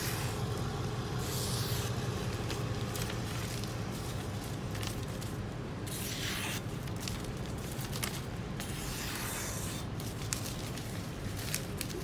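A sharp kitchen knife slicing through a hand-held sheet of newspaper: paper rustling and a few brief swishing cuts, the strongest about six seconds in, over a steady low hum. A few light clicks follow near the end.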